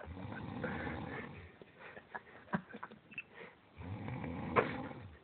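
Snoring: two long, low, rasping breaths, each about a second and a half, a few seconds apart.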